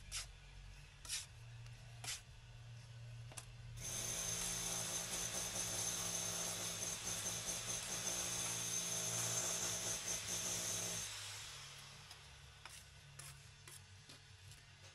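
Four sharp taps of a steel brick trowel on brick and mortar, then a high-pitched machine starts suddenly, runs steadily for about seven seconds and dies away, followed by a few fainter taps.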